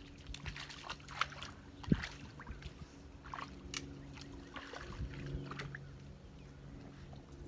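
A dog wading through shallow pond water, with irregular splashes and sloshes. A faint steady low hum runs underneath.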